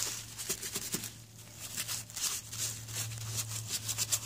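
A cloth rubbing over a small plastic outboard water pump housing in quick, irregular wiping strokes, over a low steady hum.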